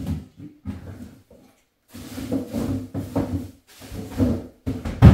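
Groceries being put away: a string of short scrapes and knocks as a drawer or cupboard is opened and shut and items are set down, with one sharp, loud knock near the end.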